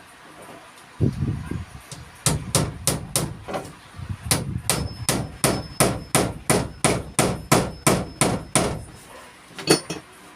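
Hammer blows in a steady run of about three strikes a second, with a faint ring under the middle of the run and one last blow near the end.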